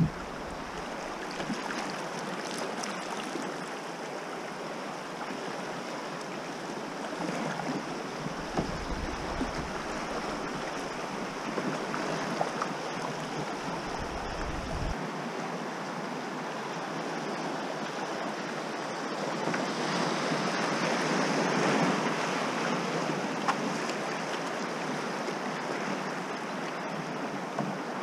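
Fast river current rushing and rippling around a canoe running a shallow riffle, with wind rumbling on the microphone for several seconds in the middle. The water grows louder a little past the middle.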